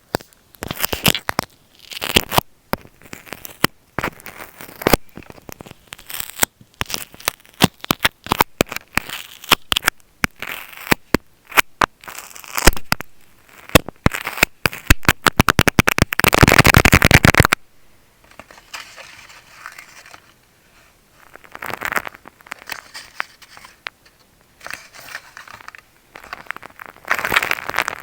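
Close-up ASMR handling of an earphone microphone with tape: sharp clicks and scratchy rubbing, a quickening run of clicks that merges into a dense crackle in the middle and stops abruptly, then softer scratching.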